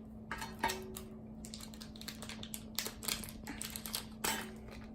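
Irregular light clicks and rustles of toy packaging being handled and opened, over a faint steady hum.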